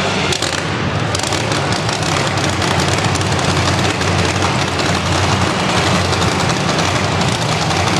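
Several monster trucks' supercharged V8 engines running at once: a loud, dense, steady rumble.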